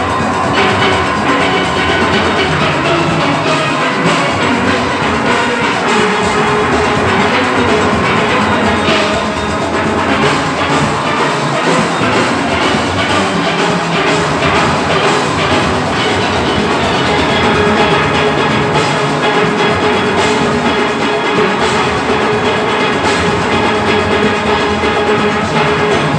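A full steel orchestra playing: many steelpans ringing out a fast melody and chords together over a percussion section keeping a steady rhythm.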